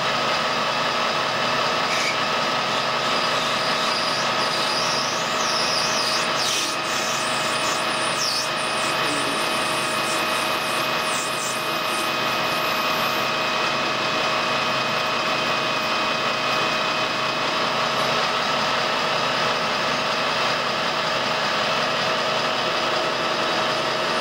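Colchester metal lathe running steadily with a constant gear whine, while a homemade ball-turning attachment's tool cuts a brass workpiece, throwing chips.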